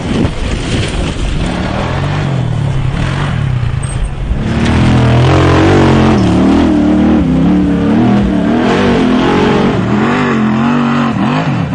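Off-road vehicle engine revving hard under load, its pitch repeatedly rising and falling, and louder from about four and a half seconds in.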